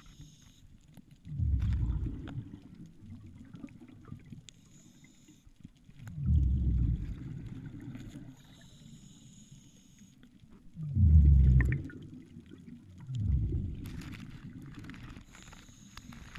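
A diver breathing underwater through diving gear, each hissing inhale followed by a loud low rush of exhaled bubbles, repeating about every four to five seconds.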